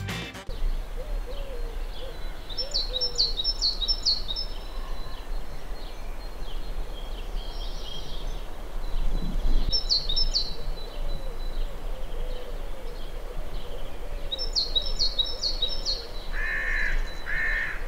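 Morning birdsong: a small bird sings a quick, high phrase of several notes three times, and two harsh caws sound near the end.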